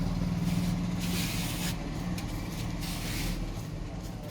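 A motor vehicle's engine on the street, its low hum fading steadily as it moves away, with a few short stretches of hiss over it.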